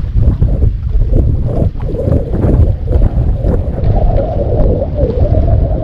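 Wind buffeting the microphone with a heavy rumble, over water slapping against the hull of a bass boat.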